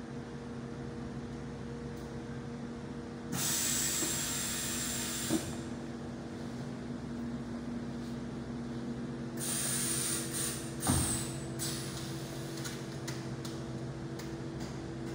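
PVC fabric welding machine running with a steady hum, cycling twice: each time a loud hiss with a high whine lasts about two seconds and ends with a short knock as the press works a seam in 900 gsm PVC tensile fabric.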